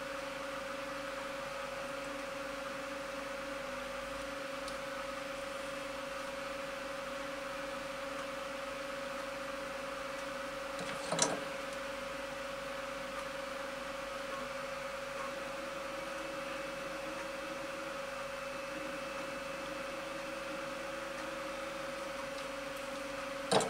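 Steady mechanical whir with a held hum tone, broken once by a short click about halfway through.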